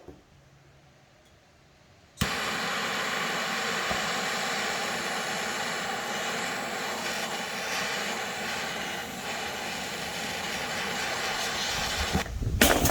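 Jobon jet torch lighter flame starting suddenly about two seconds in and running with a steady, loud hiss for about ten seconds, held against a tin can to burn through it. A short, louder burst comes near the end as the hiss stops.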